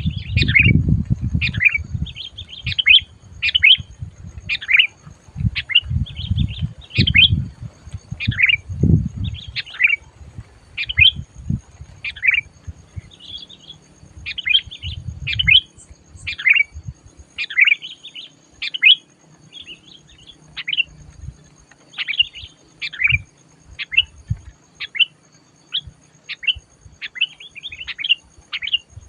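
Sooty-headed bulbul calling over and over, short chattering phrases about once a second, excited ('gacor'). Low thumps and rumble run under the calls for the first nine seconds or so.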